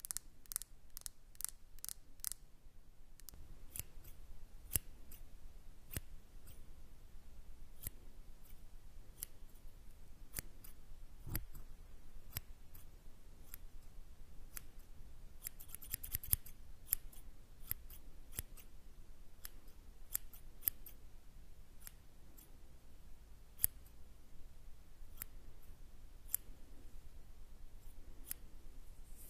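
Close-miked ASMR snipping clicks, sharp and irregular, about one or two a second, imitating scissors cutting; a quick flurry of them comes a little past halfway.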